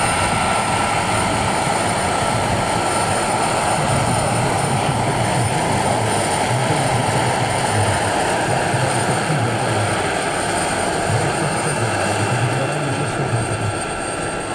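Turbine-powered giant-scale radio-controlled Mi-24 helicopter model running: a steady high turbine whine over a rushing noise, with an uneven low throb from the rotor.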